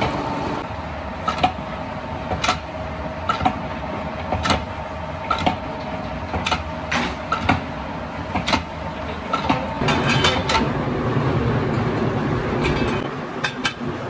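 Factory machinery running steadily, with a sharp clack or knock about once a second.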